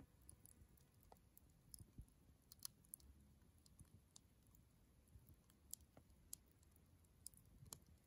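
Wood campfire burning low on glowing embers, crackling faintly with irregular small pops and ticks.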